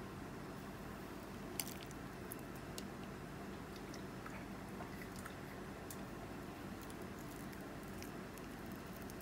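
A plastic spoon scooping into soft pineapple ice cream in a plastic pint container: faint squishy scrapes and a few light clicks, the sharpest about a second and a half in, over a low steady hum.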